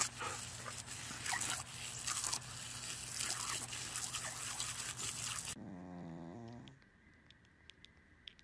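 Garden hose spraying water in a steady hiss while a dog bites and snaps at the stream. About five and a half seconds in, the hiss stops abruptly and a short whimper follows, then faint scattered clicks as newborn puppies suckle.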